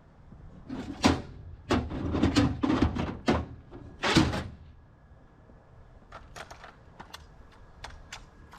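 Clunks and knocks of gear being handled, like a lid or door banging and items shifted in a box: a quick run of several sharp knocks in the first half, then a few light clicks.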